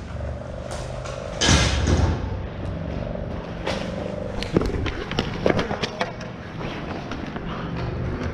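Ball hockey play: sharp clacks of sticks and ball on the plastic sport-court floor, scattered a few at a time, with one louder, heavier thump about a second and a half in, over a low steady hum from the arena.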